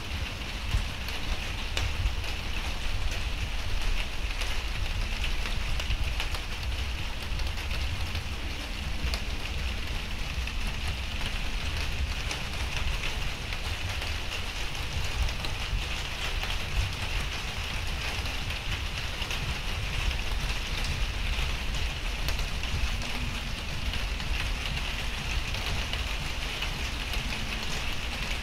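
Steady rain falling: an even hiss of rain with scattered sharp drip clicks, over a continuous low rumble.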